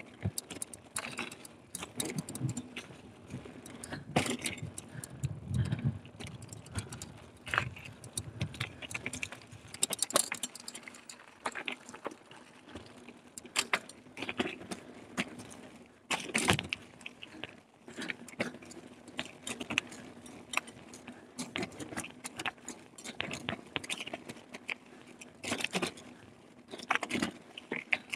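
Carrera Hellcat mountain bike rattling and clattering over a rough trail: an irregular stream of clicks and knocks from the bike's parts, with louder jolts every few seconds.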